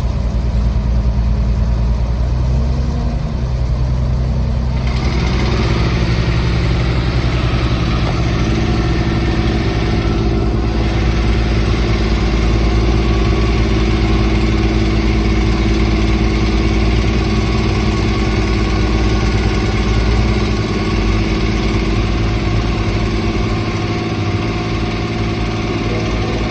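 Engine of road-construction machinery running steadily; about five seconds in, a louder, hissier sound joins in and carries on.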